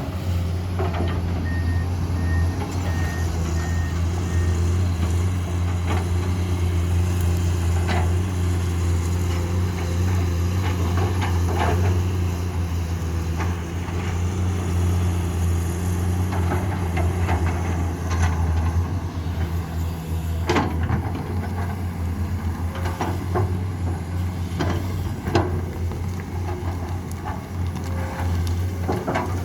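Heavy diesel engines of a Komatsu PC210 excavator and a dump truck running steadily under load, with a short run of reversing beeps about two seconds in and scattered sharp knocks.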